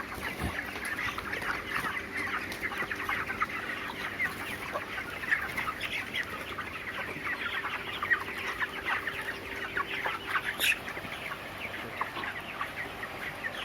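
A large flock of 29-day-old broiler chickens calling all at once: a continuous chatter of many short, overlapping peeps and clucks. A faint steady hum runs under it through the middle.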